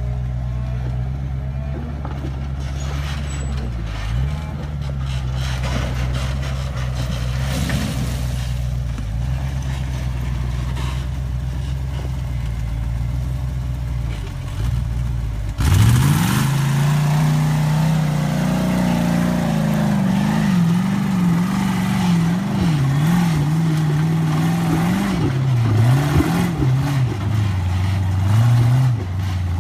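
Rock buggy engine running at a steady low speed, then about halfway through it revs up sharply. It keeps surging up and down under load as the buggy charges up a steep dirt hill.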